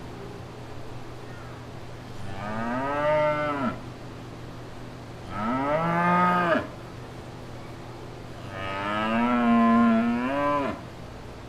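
Cattle mooing: three long calls a couple of seconds apart, each rising in pitch and dropping away at the end, the last the longest.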